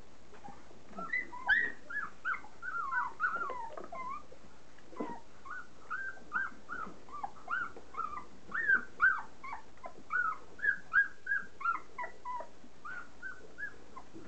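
Standard poodle puppies, about three and a half weeks old, whimpering and squeaking: many short high-pitched cries in quick succession, from about a second in until near the end.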